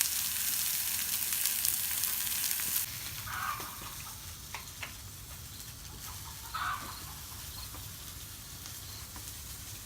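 Food sizzling in a pan, a steady hiss that is louder for the first three seconds, with a couple of short chirps in the background.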